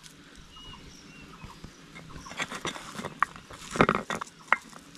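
A hand squeezing and kneading soft mashed boiled potato: a run of short wet squishes and sticky clicks starting about halfway through, loudest a little before the end.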